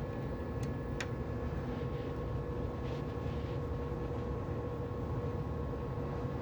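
Steady background hum with a faint held tone, and two light clicks, about half a second and a second in.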